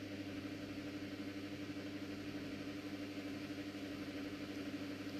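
Quiet room tone: a steady low hum with a faint hiss underneath, unchanging throughout.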